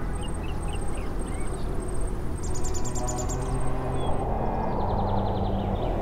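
Birds and insects: a high insect-like chirp repeating about twice a second, short bird chirps, and a fast high trill about halfway through, with another trill later. A steady rushing noise swells over the last couple of seconds.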